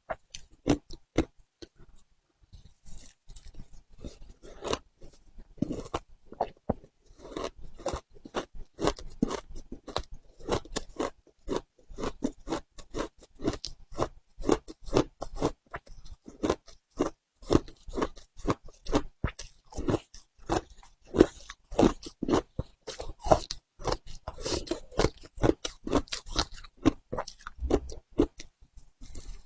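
Close-up crunching and chewing of frozen matcha ice, a rapid run of sharp crackles as the ice is bitten and ground between the teeth, with a short pause about two seconds in.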